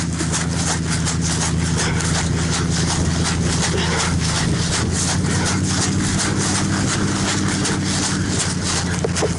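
A truck engine running steadily at low speed, with a dense clatter of knocks and rattles over it.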